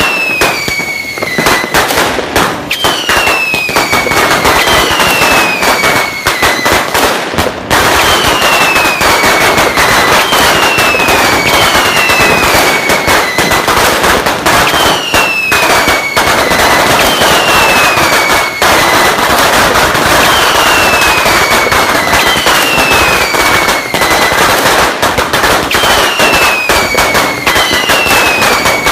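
A long string of firecrackers (sinturon ni hudas) going off in a rapid, continuous crackle of bangs. A high whistle falling in pitch repeats about every second and a half over the crackling.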